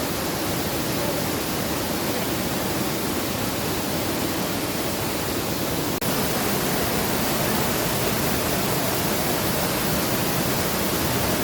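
Karura waterfall's falling water rushing steadily, with a brief break about halfway through after which it is slightly louder.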